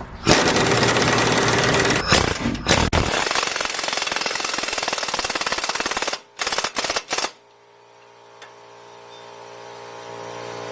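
Impact wrench hammering in long runs for about six seconds, then a few short bursts as the bolt is run in. After that a steady motor hum comes in and grows gradually louder.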